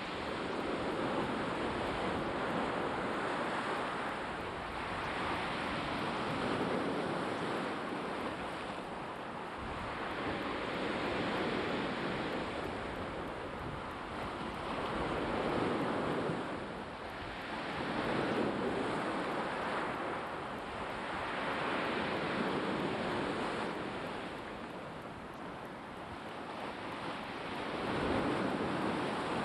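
Black Sea waves breaking and washing on the shore, the surf swelling and easing every few seconds.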